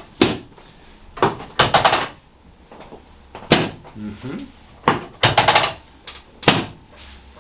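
Small chiropractic adjusting instrument (a light 'hammer', chosen to use little force) striking the sacrum and lower back: sharp clicks, some single and some in quick runs of several, about every second.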